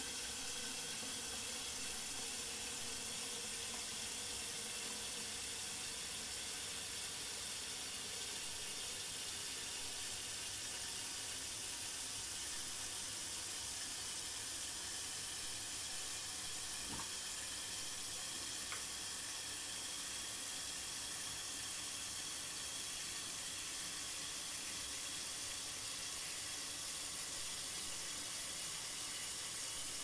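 Toilet cistern refilling after a flush: a steady hiss of water running in, with two faint clicks about halfway through.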